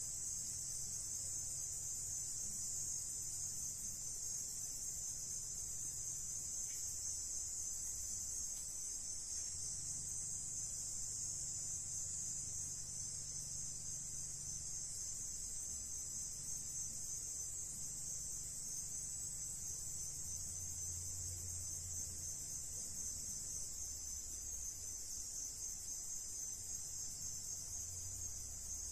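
Crickets chirping in a steady, unbroken high-pitched chorus.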